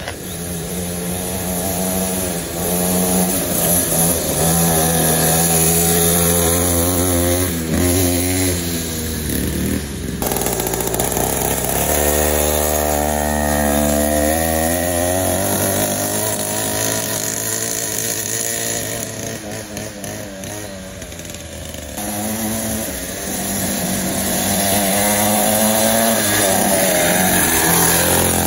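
Small 49cc two-stroke pocket bike engine running and being revved, its pitch repeatedly rising and falling.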